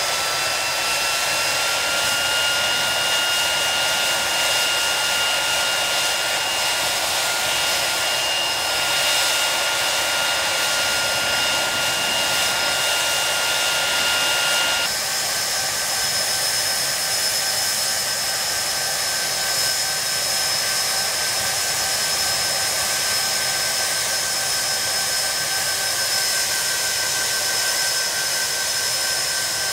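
Hawker Siddeley Nimrod's Rolls-Royce Spey turbofan engines running steadily: a high compressor whine over a rush of air. The whine rises slightly in pitch over the first couple of seconds, then its pitch changes abruptly about halfway through.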